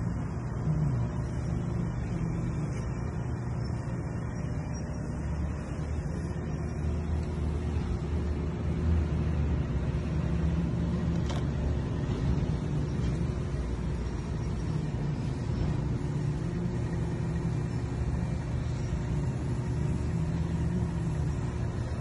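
Steady low background rumble with a faint steady hum running through it.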